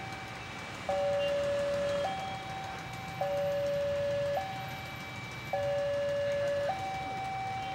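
Railway level-crossing warning alarm sounding a steady two-tone hi-lo signal, each tone held about a second, warning of an approaching train.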